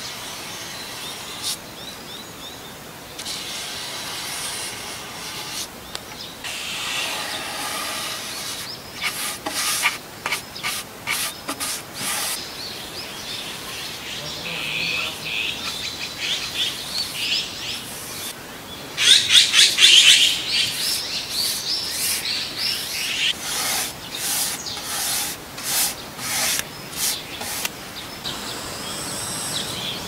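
A paintbrush rubbing back and forth along bare wooden slats in short repeated strokes as brown paint is brushed on, with birds chirping in the background.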